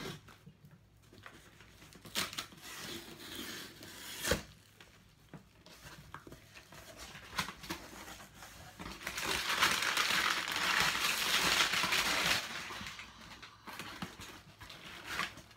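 Cardboard shipping box being opened by hand: the flaps and the contents rustle and crinkle, loudest for about three seconds past the middle, with a sharp snap about four seconds in.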